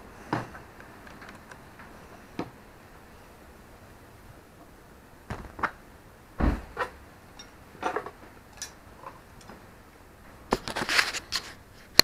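Scattered light clicks and knocks of metal hand tools and small parts being handled, with a duller thump about halfway through and a quick run of clatter near the end.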